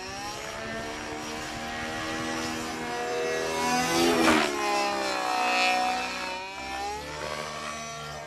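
Radio-controlled helicopter's 29cc two-stroke gasoline engine and rotor blades in aerobatic flight, the engine pitch sliding up and down. About four seconds in the pitch swoops sharply, with a loud rush of blade noise.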